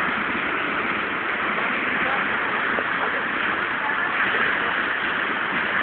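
Muddy floodwater rushing past in a fast, turbulent torrent: a steady, loud rushing noise with no breaks.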